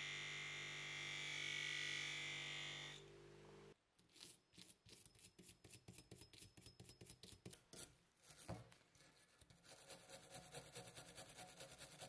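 A bench grinder runs steadily with a high whine while a small metal part is held to its wheel, then cuts out after a few seconds. A hand wire brush then scrubs rusty metal in quick strokes, about three or four a second, getting faster and denser near the end.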